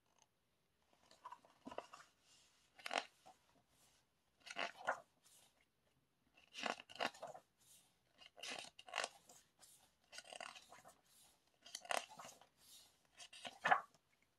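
Paper rustling as glossy pages of a K-pop album photobook are turned and handled: a series of crisp, irregular rustles about every one to two seconds.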